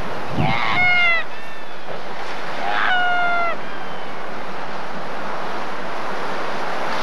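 Light-mantled sooty albatross calling twice, two drawn-out cries about two seconds apart, each dropping in pitch at the end, over steady surf and wind.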